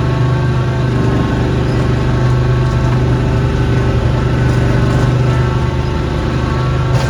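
Snowblower's small gasoline engine running steadily at a constant speed, with a brief click near the end.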